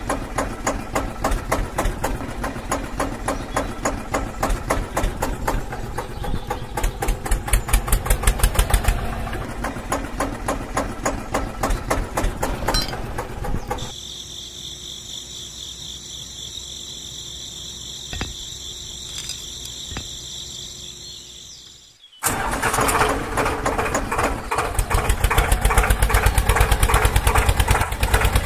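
Tractor engine running with a fast, even chugging beat. For several seconds past the middle it gives way to a quieter, steady high-pitched whine, then the engine sound comes back abruptly.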